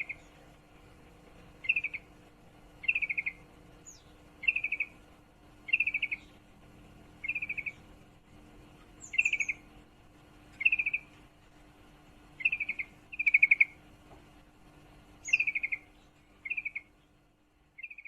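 Female yellow-vented bulbul (trucukan) repeating short, fast chattering calls, each a quick stutter of notes, about every second and a half. This is the call of a female in breeding condition calling for a male.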